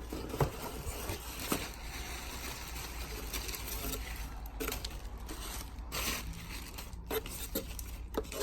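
Cardboard box and packing being handled: rustling with scattered light knocks and clicks.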